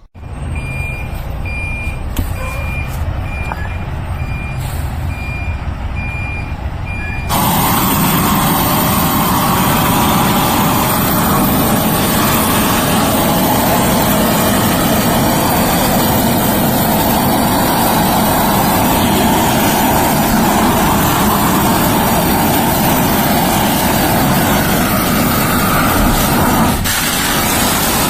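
Propane weed burner torch flame burning with a steady rushing noise. About seven seconds in it jumps abruptly to a much louder, fuller rush that holds steady. A faint on-off high tone sounds during the quieter first part.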